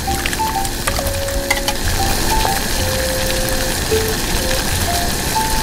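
Snails boiling in Coca Cola in a miniature steel wok: a steady sizzling, bubbling hiss, with light clicks of a small metal fork stirring against the pan.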